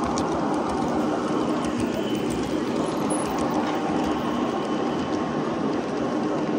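Model trains running past on the layout's track: a steady rolling noise of wheels on the rails, with light clicking.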